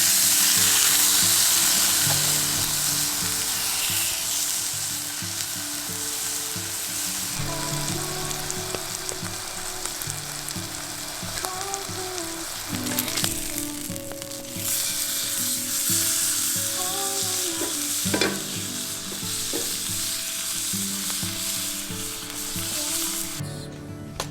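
Food sizzling in a hot iron frying pan. The sizzle sets in sharply, eases for a moment about halfway, then picks up again and stops just before the end.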